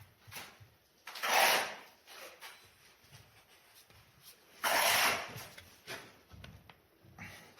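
Wooden stool parts being handled and fitted together: two short, loud rasping rubs, one about a second in and one near five seconds, with light knocks and handling noises between.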